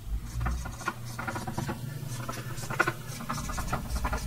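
Marker pen writing numbers on a whiteboard: a quick series of short strokes and taps of the tip on the board.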